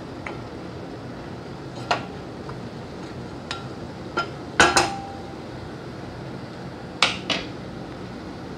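A spoon stirring minced beef in a metal cooking pot, knocking against the pot's side and rim several times. The loudest are two quick double knocks, one about halfway through and one near the end.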